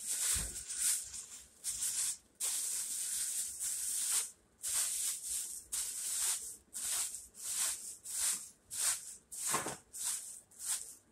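Black plastic bag rustling and crinkling in short, irregular bursts, one or two a second, as gloved hands unwrap it, with a low thump just at the start.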